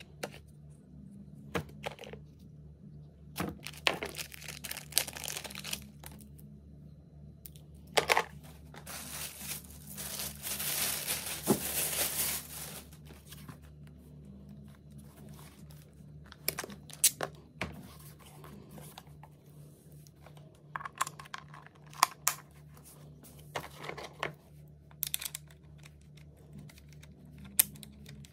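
Rifle parts handled in a foam-lined plastic hard case: scattered clicks and knocks of plastic and metal pieces being lifted and set down, with a few seconds of plastic wrapping crinkling and tearing as it is pulled off, about ten seconds in. A faint steady hum sits underneath.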